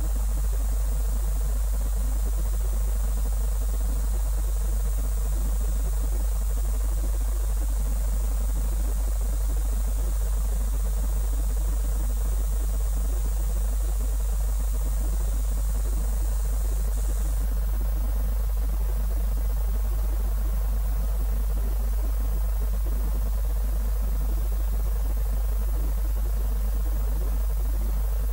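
Steady, loud low-pitched hum with a faint hiss over it, unchanging throughout; a faint high whine cuts off about 17 seconds in.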